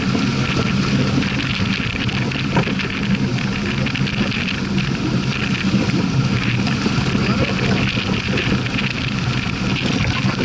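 Water rushing along the hull of a heeled sailing yacht under sail, mixed with steady wind noise on the microphone.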